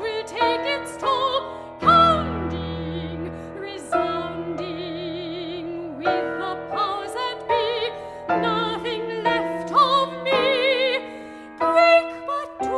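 Soprano singing with vibrato over piano accompaniment in a contemporary art song, the piano striking chords with a deep bass note about two seconds in.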